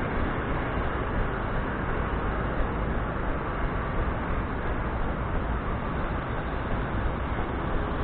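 Steady rushing noise of wind and motion on a body-carried camera's microphone during a run, with small regular bumps about twice a second from the runner's strides.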